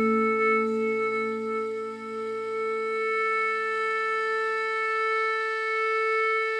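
A pi phu thai (pi luk khaen), a small bamboo free-reed pipe, holds one long steady note over a low, steady backing.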